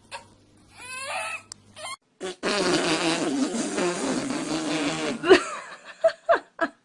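A long, loud fart lasting about three seconds, followed by a few short, sharp sounds.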